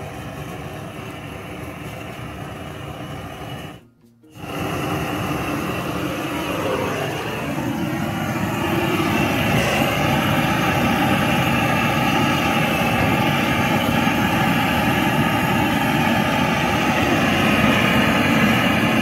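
Handheld butane gas torch burning with a steady hissing roar as its flame is held on split firewood in a smoker's firebox. The sound breaks off briefly about four seconds in and comes back louder.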